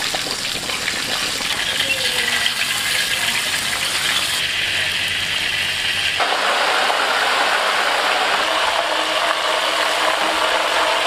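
Battered whole chickens deep-frying in a wok of hot oil: a loud, dense sizzling and crackling.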